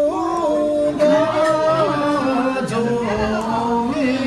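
A man singing a slow song unaccompanied, holding long notes and sliding up into each new pitch.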